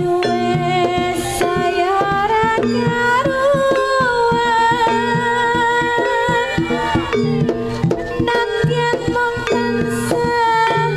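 Live Javanese jaranan gamelan music: quick hand-drum strokes and steady ringing gong tones under a sliding, wavering melody line.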